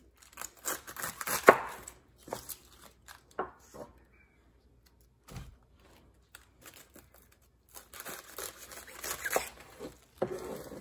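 A chef's knife slicing through the crinkly leaves of a Savoy cabbage head on a wooden cutting board: crunching, tearing leaf sounds with sharp taps of the blade on the board. It comes in two stretches of cutting, at the start and again from about eight seconds in, with a few single crunches and a dull thump in between.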